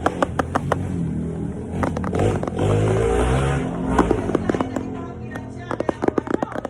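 Rapid crackling and clicking of packaging being handled close to the microphone, with a louder stretch of low pitched sound in the middle.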